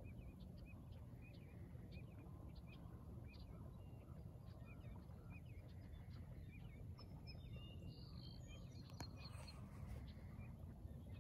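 Faint birdsong: short, repeated chirps from small birds over a low, steady rumble of wind, with a brief flurry of higher calls about seven to nine seconds in.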